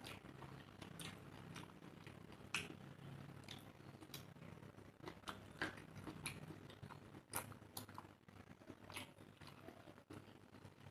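Close-miked mouth sounds of eating rice and curry: soft, irregular wet clicks and smacks of chewing, a few every second.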